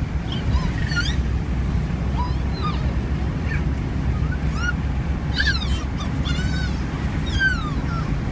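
Steady low road-and-engine rumble of a car driving on a highway, heard from inside the cabin. Over it come short high squeaky chirps that glide up and down about once a second, with a quick run of them near the end.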